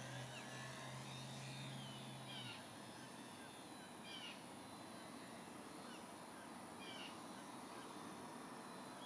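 A bird calling over and over, a short sweeping chirp about every second and a half. A low steady hum cuts off about two and a half seconds in.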